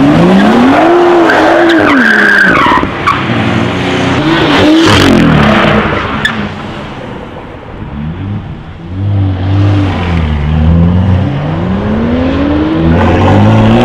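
BMW M2 coupe revving hard while its rear tyres skid and squeal through a power-slide. The engine pitch climbs and drops three times, with a quieter lull in the middle before a final rev-up.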